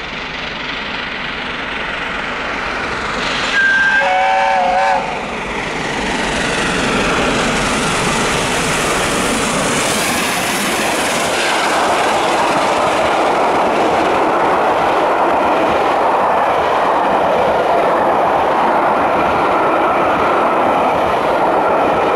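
Peppercorn A1 Pacific steam locomotive 60163 Tornado passing at speed with a train of coaches. Its whistle sounds once for about a second and a half, about four seconds in, then the locomotive and its long rake of coaches rush past in a steady, loud roll of wheels on rail.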